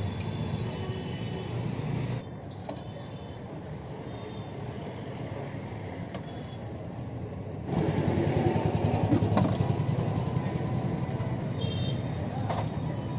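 Street traffic noise: vehicle engines running steadily, with short horn toots several times. The sound drops abruptly about two seconds in and gets louder again near eight seconds.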